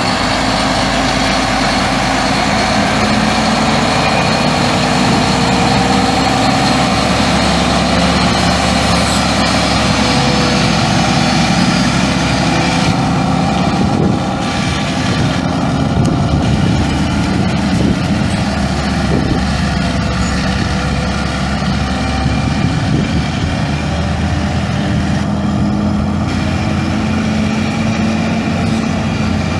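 Detroit Diesel Series 60 11.1-litre six-cylinder diesel engine of a 2001 Terex TA35 haul truck running steadily, with only small shifts in pitch.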